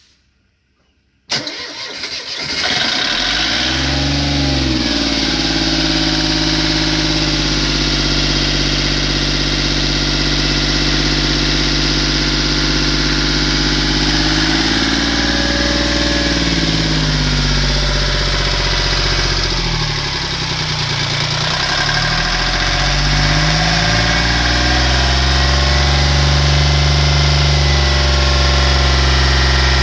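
Yacht's inboard marine diesel engine started: a brief crank about a second in, then it catches and settles into steady running. Its speed shifts up and down a couple of times midway, then it runs a little faster and louder to the end.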